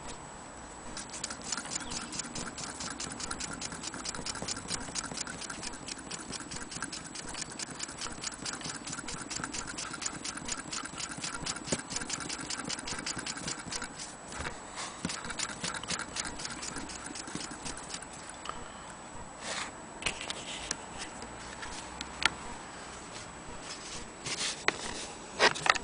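Antique Willcox & Gibbs chain-stitch sewing machine stitching cloth as its handwheel is turned by hand: the mechanism ticks in a rapid, even rhythm. The ticking breaks briefly about halfway and stops about three quarters of the way through, followed by a few scattered knocks and clicks.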